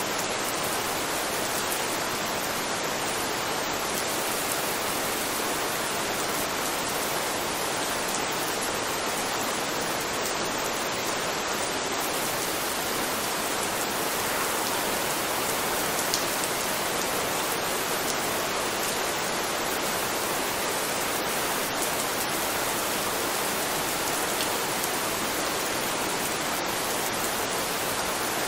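Steady rain: an even, unbroken hiss of falling rain with a few faint drop ticks.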